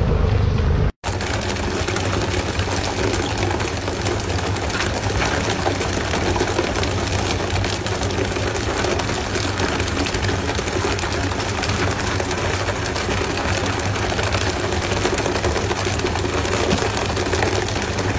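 Fishing boat's engine running steadily under the even hiss and splash of water spray over the stern.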